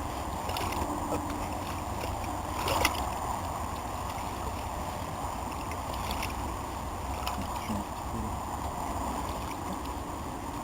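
Steady outdoor noise of water at a pond's edge with wind rumbling on the microphone, broken by a few faint knocks and splashes, the most noticeable about three seconds in.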